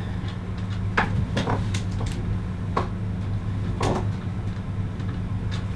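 A steady low hum with about six light knocks and clicks spread through it.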